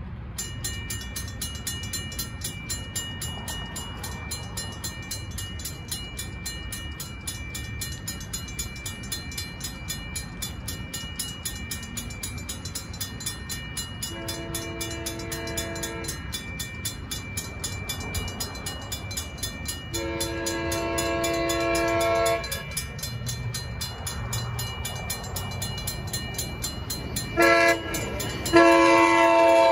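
Railroad crossing bell starts ringing right away and keeps up a fast, even ring. From about halfway through, an approaching Amtrak Capitol Corridor train sounds its multi-note horn for the crossing: two long blasts, then a short one and a long one. The last two are the loudest.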